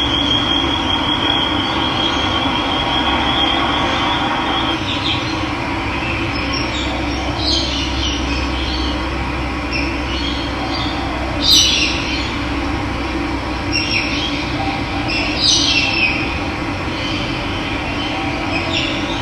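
Steady rush of running water, with birds chirping in short high calls several times and a thin high trill over the first few seconds.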